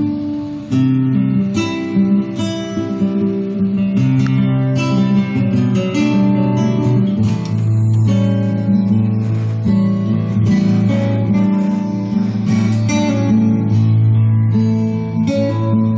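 Guitar music with strummed chords, played from a vinyl record on a Pioneer PL-570 turntable through a Sansui AU-X501 amplifier and Hitachi HS-430 speakers, heard over the speakers in the room.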